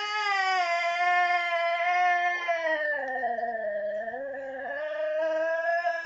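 A girl's voice singing long, drawn-out notes with no words. The pitch holds steady, dips lower about halfway through, then comes back up.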